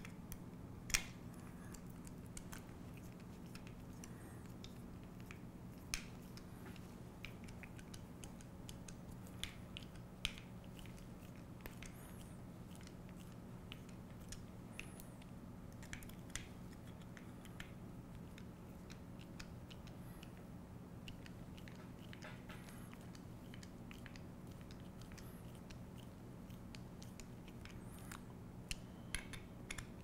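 Scattered small clicks and ticks of a nut driver turning M3 hex cap screws into a mecanum wheel's hex adapter, the tool and parts knocking as they are handled, over a faint steady hum. The loudest click comes about a second in, with a few more close together near the end.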